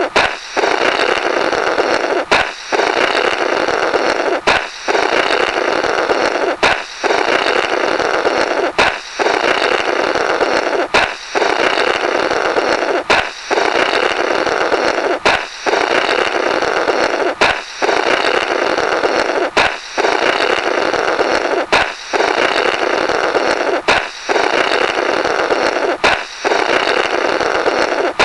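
A balloon popping, each pop followed by a raspy, buzzing 'blorrrt' of someone blowing through the burst rubber, repeated about every two seconds in a loop.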